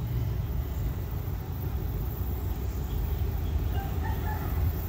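A rooster crowing once, faintly, about three and a half seconds in, over a steady low rumble.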